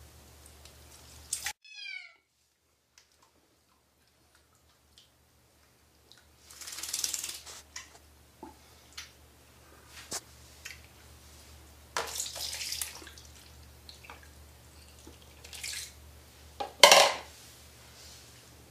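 Bath water splashing and sloshing in several short bursts, the loudest near the end, with drips and small clicks in between.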